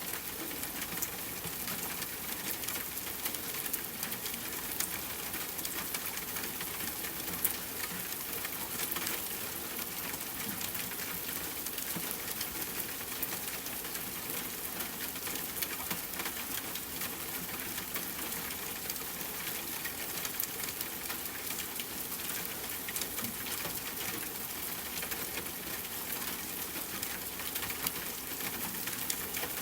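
Steady rain falling: an even hiss with a dense patter of individual drops ticking through it.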